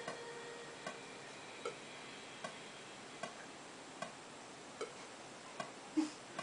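Metronome click ticking steadily, one click about every 0.8 seconds, left running after the guitar part has rung out. A short stifled laugh comes near the end.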